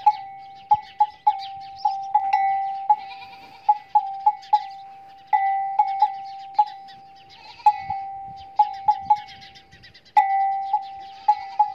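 Camel's metal neck bell clanking at an uneven walking pace. Each stroke rings on as one steady note before the next hit, with faint high chirping over it.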